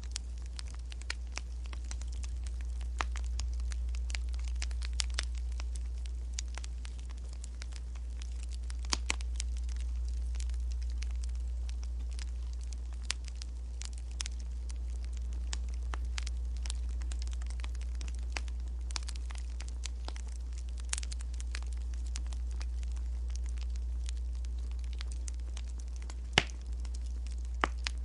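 Wood fire crackling: scattered sharp pops and snaps at irregular intervals, one louder pop near the end, over a steady low rumble.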